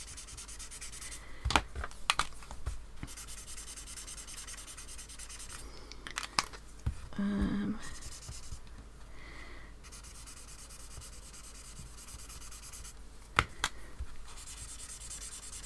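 Alcohol marker brush nibs stroking and rubbing on sketchbook paper to blend grey swatches: a soft, steady scratchy sound. A few sharp clicks or taps come through it, about one and a half, two, six and thirteen seconds in.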